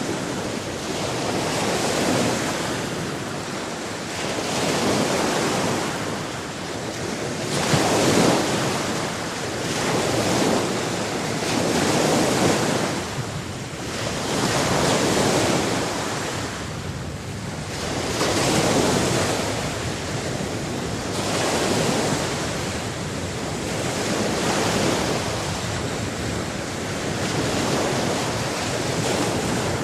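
Sea waves breaking and washing onto shore, a rushing noise that swells and eases about every three seconds.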